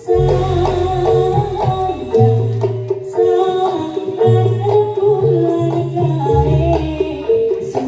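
Javanese jaranan gamelan music at full volume: hand drumming under a short melody of held metallic notes that repeats over and over.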